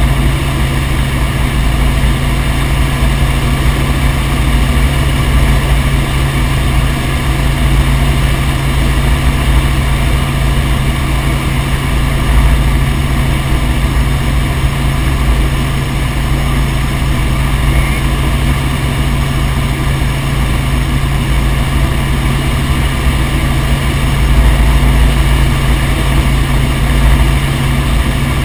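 Helicopter in flight, its engine and rotor making a loud, steady drone with a strong low hum.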